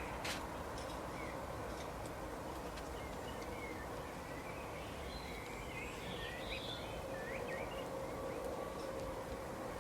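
Songbirds chirping in short, scattered calls, busiest about two-thirds of the way through, over a steady hiss of outdoor background noise with a faint low hum. A single click comes just after the start.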